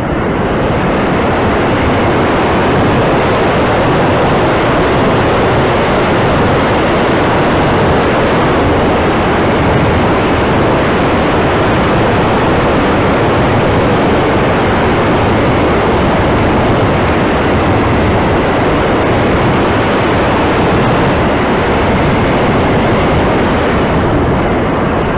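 Steady, loud rush of airflow buffeting the microphone of a camera mounted on a radio-controlled model plane in flight.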